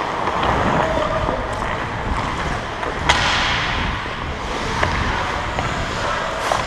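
Ice skate blades scraping and carving across the rink ice, heard up close from a helmet-mounted camera, with a sharp crack about three seconds in and a few lighter clicks.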